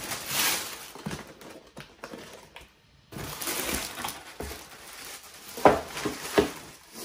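Tissue paper and a plastic mailer bag rustling and crinkling as a new pair of shoes is lifted out of a shoebox, with a couple of sharp knocks about two-thirds of the way through.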